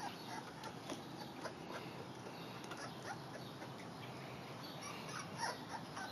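A young puppy whimpering in short, faint cries while it is held up, the strongest few about five and a half seconds in.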